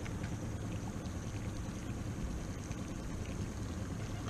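Steady low rumble with a light hiss of water from a boat sitting on the water.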